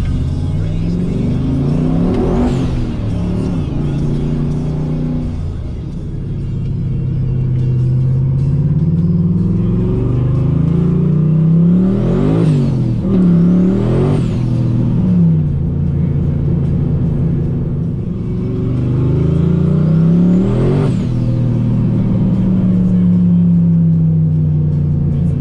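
Engine of a GM pickup with a swapped six-speed Tremec manual, under way and being shifted. The revs climb and drop sharply about two seconds in, twice around twelve to fourteen seconds, and again around twenty-one seconds, with steady cruising between.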